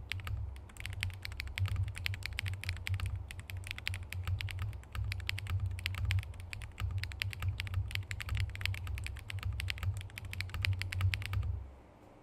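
Fast typing on a Transition Lite TKL mechanical keyboard with SW x Haimu MP linear switches and glossy KBS Hey8all keycaps: a dense, continuous run of keystroke clacks that stops abruptly near the end.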